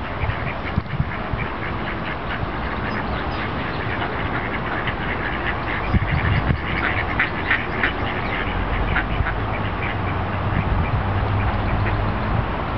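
Mallard ducks quacking, a run of short quacks that comes thickest around the middle, over a steady background hiss.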